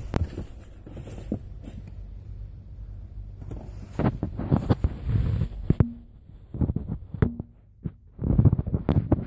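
Car engine being cranked in three short bursts in the second half, coughing and sputtering without catching: a hard start after a stall.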